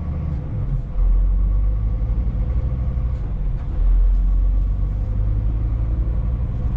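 Inside the cab of a Scania S500 truck on the move: its 13-litre straight-six engine and the road make a steady low rumble, with a faint steady whine above it.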